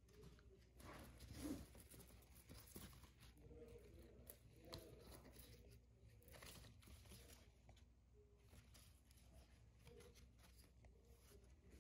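Near silence: room tone with faint, scattered rustles and light clicks from something being handled.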